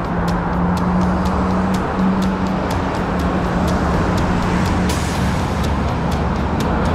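Road traffic on a busy multi-lane road: cars and vans passing close by, heard as a steady rush of engine and tyre noise with a low engine hum, and faint light ticks about three times a second.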